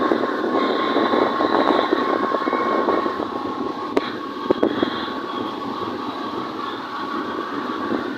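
Motorbike riding along at speed: steady wind and road noise with a thin steady whine running through it, and a few sharp clicks about four seconds in.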